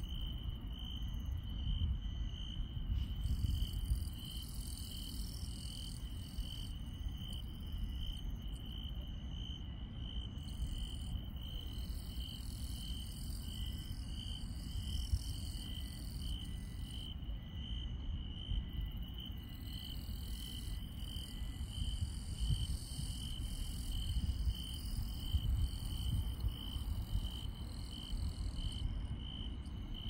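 Grass insects chirring at night: one insect gives a steady, evenly pulsed high chirp about twice a second, while other insects' higher trills come and go, over a steady low rumble.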